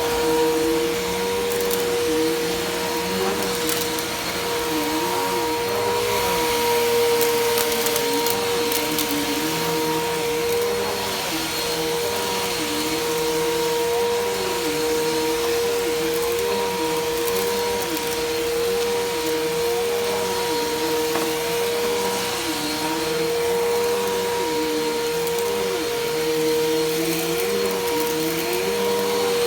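Bissell PowerForce Helix Turbo upright vacuum cleaner running with a steady motor whine, while a lower tone wavers up and down about once a second.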